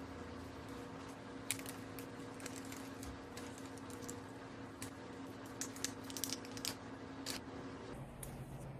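Irregular light clicks and taps, a dozen or so, bunched toward the middle, over a faint steady hum that stops near the end.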